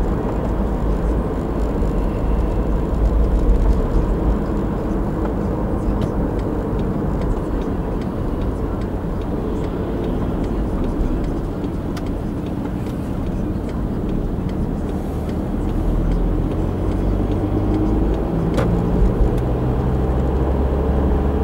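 Diesel car engine and road noise heard from inside the cabin while driving on a town road: a steady, loud low drone. The engine's low hum grows stronger in the last few seconds.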